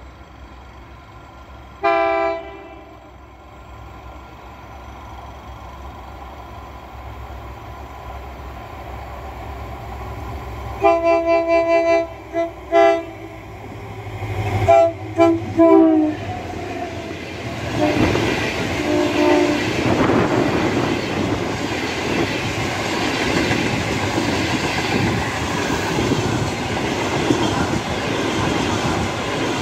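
Diesel locomotive (Materfer MTF 3300) approaching and sounding its multi-note horn. There is one short blast about two seconds in, then a cluster of short blasts around eleven to thirteen seconds and another around fifteen seconds, over a rumble that grows louder. The locomotive and its passenger coaches then pass close by at about 60 km/h, with a loud, continuous clatter of wheels on the rails.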